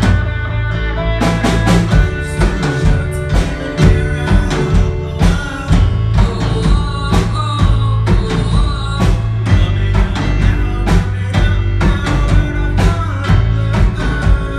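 Live rock band playing: ringing guitar chords over bass, then the drum kit comes in about a second in and keeps a steady beat.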